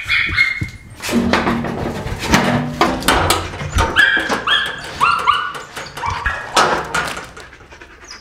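Dogs whining and yelping in a run of short high calls, with a few lower barks, mixed with sharp knocks and clatter from a metal door and footsteps.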